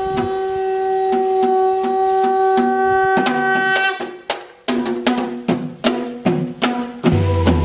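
Background music: held tones over light percussion, dropping away briefly about four seconds in, then sharp percussion hits about three a second.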